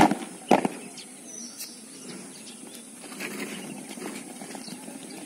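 A squad of cadets' boots stamping on concrete in unison twice, about half a second apart, on a drill command, followed by soft scuffing and shuffling of boots and uniforms as they dress the line.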